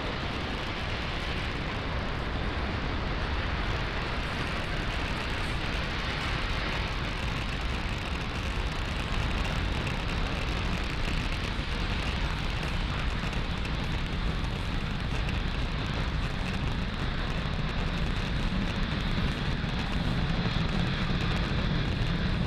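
Falcon 9 first stage's nine Merlin engines burning at full thrust during ascent: a steady rumble of rocket exhaust with no pitch, even in level throughout.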